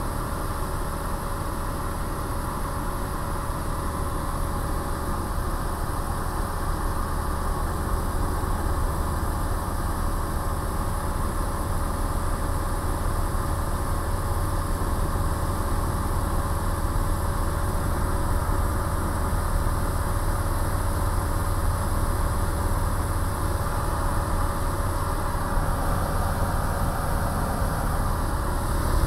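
Single-engine light aircraft's piston engine and two-blade propeller running steadily in cruise, heard from inside the cockpit as an even low hum with a thin steady tone over it.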